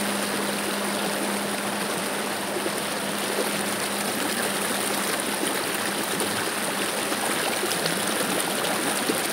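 Steady rushing of flowing water, like a stream, as an even, unbroken hiss.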